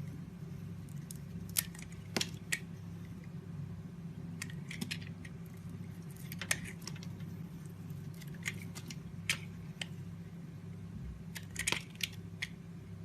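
Bar of soap being cut and scraped with a knife: irregular sharp, crisp cuts, singly or in quick clusters, over a steady low hum.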